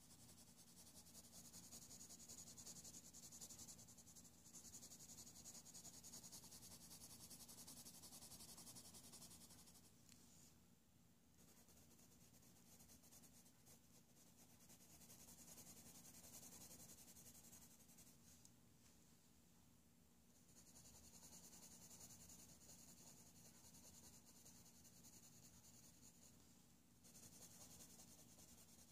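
Faint scratchy hiss of a Faber-Castell Polychromo colored pencil shading lightly across toothy coloring-book paper, in long stretches of strokes with short pauses about ten and nineteen seconds in.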